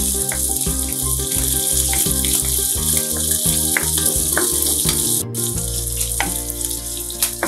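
Green chillies, mustard seeds and curry leaves sizzling in hot oil in a nonstick wok, stirred with a spatula, with a steady hiss throughout. Background music with a pulsing beat plays underneath.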